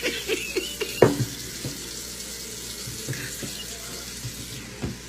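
Tap water running into a sink and splashing as raw chicken is washed under it, with scattered clicks and a sharp knock about a second in and another near the end.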